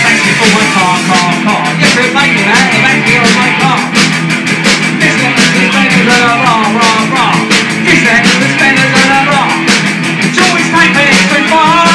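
A rock song played by a full band, with a steady, driving drum beat.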